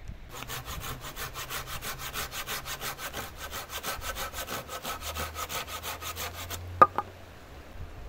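Hand saw cutting through a wooden branch in quick, even back-and-forth strokes that stop a little over six seconds in. Two sharp clicks with a short ring follow a moment apart, the loudest sounds here.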